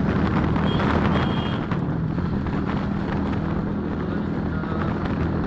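A small vehicle's engine running steadily while riding along a street, with wind buffeting the microphone.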